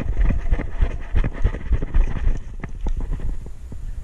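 Rumbling wind and handling noise on the camera microphone with irregular thumps, easing about two and a half seconds in to a few scattered sharp clicks.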